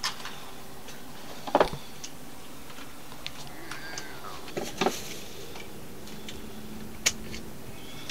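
A few sharp, light metallic clicks, a couple of seconds apart, from pliers and a broken bit being worked out of a cordless rotary tool's collet.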